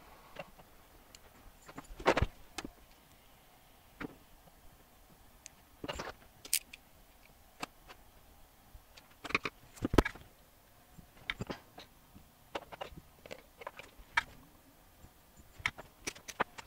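Scattered small clicks and taps from hands handling an electronics kit on a bench: test leads, plugs and the circuit board knocking and rubbing. The two loudest knocks come about two seconds in and ten seconds in.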